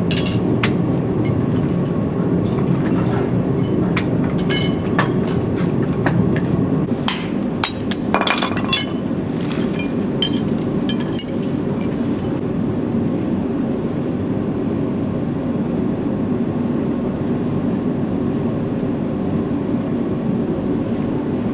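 Sharp metallic clinks and clicks from farrier's tools at work on a horse's hoof, scattered through the first half and then stopping, over a steady low rumble.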